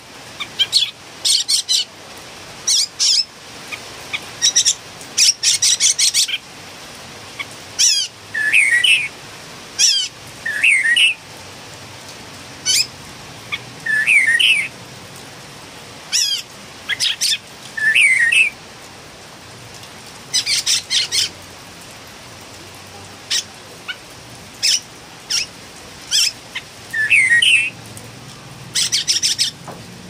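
Philippine bulbul calling over and over: short clusters of sharp, high notes, some with lower swooping notes, repeated every one to three seconds.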